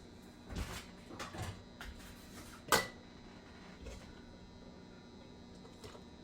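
Light knocks and clinks of jars and a canning funnel being handled while coleslaw is packed into the jars, with one sharper clink a little before the middle.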